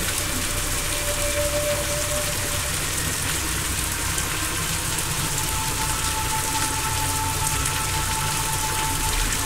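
Steady rain ambience, an even hiss of falling rain. Under it are faint held tones that shift to new pitches about three and five seconds in.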